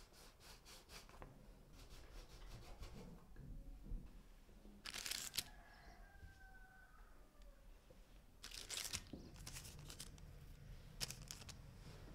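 Quiet, short rustles and crinkles of baking paper as raw dough rings are set down on a parchment-lined tray. They come several times, the loudest about five seconds in.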